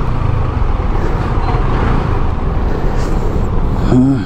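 Riding noise from a Yamaha scooter moving slowly through city traffic: a steady rumble of the engine, road and surrounding vehicles. A short wavering tone comes in just before the end.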